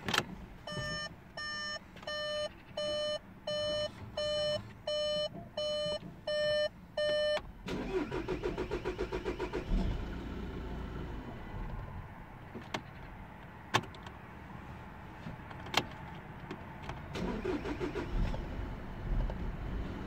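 A dashboard warning chime beeps about eleven times, evenly spaced. Then the starter of a 2015 VW Golf 1.6 TDI cranks and the diesel engine catches and runs: the first start after a fuel filter change. Near the end comes a second short burst of cranking.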